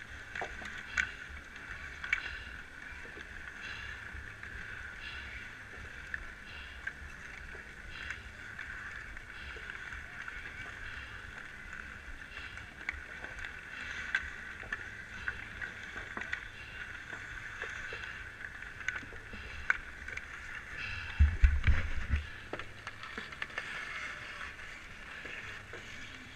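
Outdoor pond hockey on natural ice: scattered sharp clacks of sticks and puck and the scrape of skates over a steady hiss of the rink, with wind rumbling on the microphone and a stronger rumble or knock about 21 seconds in.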